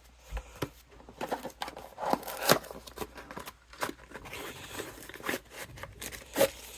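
A cardboard box being opened and the packaging inside handled: a run of irregular crinkles, clicks and scrapes, with sharper knocks about two and a half seconds in and near the end.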